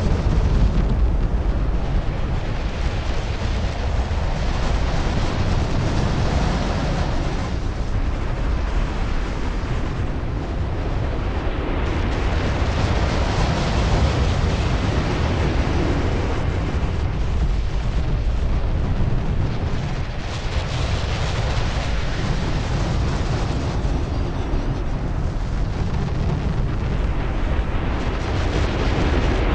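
A designed cinematic sound effect: a continuous, dense rumbling roar with a crackling texture that stays at a steady level throughout.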